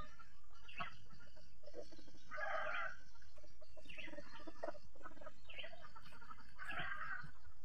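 Domestic chicken clucking in a string of short calls about a second apart, two of them longer and louder, about two and a half and seven seconds in.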